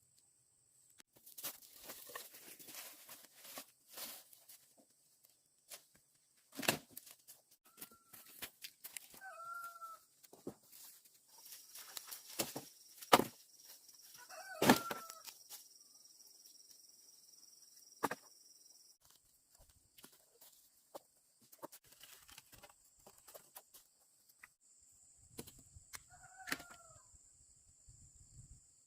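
Chickens clucking a few short times, amid sharp knocks and rustling from hands-on work, over a steady high-pitched tone.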